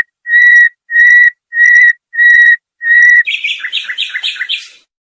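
A songbird singing the 'Haddad' song used to tutor young cage birds: a run of evenly spaced, clear whistled notes, then a quick twittering trill about three seconds in that stops near the end.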